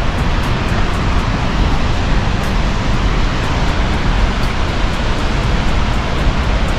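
Steady roar of White River Falls, a large waterfall's water pouring and crashing, loud and even with no let-up.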